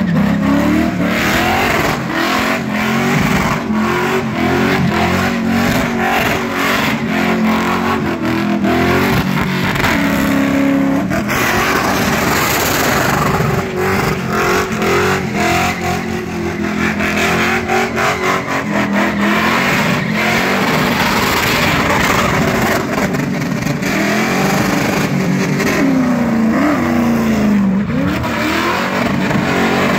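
Car engine revving high in a burnout, its rear tyres spinning and screeching on the pavement without pause. The revs drop and climb back twice, about ten seconds in and near the end.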